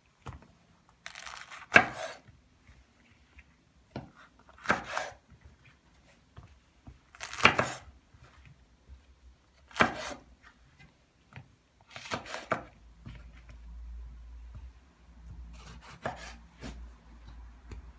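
Kitchen knife slicing long green peppers and tomatoes on a wooden cutting board: separate cuts one to three seconds apart, each ending in a sharp knock of the blade on the wood.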